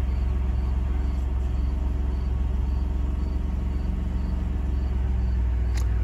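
Ford F-150 pickup's engine idling steadily, heard from inside the cab as a low, even hum.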